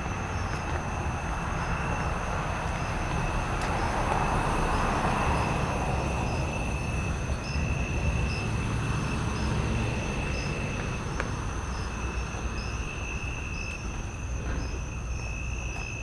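Night insects chirping without a break, one steady high trill and a regular pulsing call above it. Under them runs a broad, low rumbling rush that swells to its loudest around five seconds in and slowly eases off.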